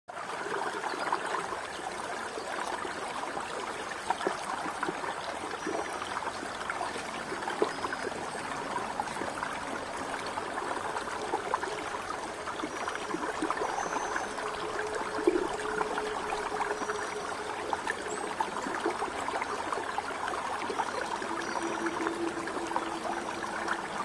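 Shallow spring-fed stream flowing over stones: a steady babble of water with frequent small splashes and gurgles.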